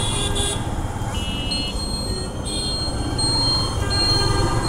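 Street traffic heard from a slowly moving motorcycle: a steady low rumble of wind and engine, with several short, high-pitched rings and electronic beeps from nearby vehicles, and a thin high tone held through the second half.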